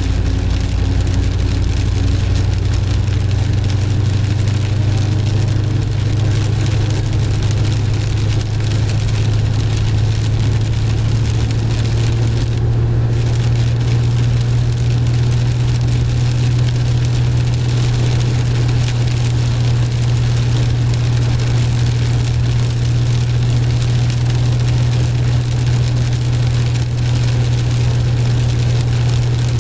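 Pontiac Firebird's engine droning steadily with tyre and road noise, heard from inside the cabin while driving on a rain-soaked highway.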